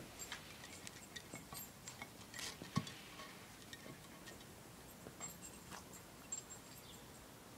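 Faint, irregular light clicks and taps of a West Highland white terrier's claws and paws on concrete paving slabs as she moves about, with one sharper tap near the middle.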